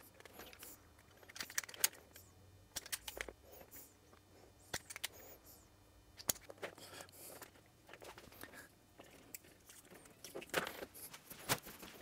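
Faint, scattered clicks and rustles of hands working thin wires and small plastic connector terminals, with the snap of a hand wire stripper among them. The noises come in short clusters rather than a steady run.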